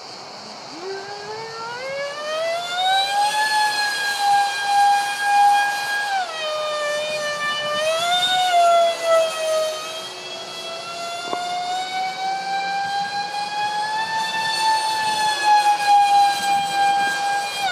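Twin electric ducted fans of a Freewing Su-35 RC jet screeching in flight, a loud high whine whose pitch rises over the first few seconds, dips twice in the middle, climbs slowly again and falls near the end. The harsh edge comes from the loose fans: cheap shaft adapters and mounting pads shaken loose by vibration.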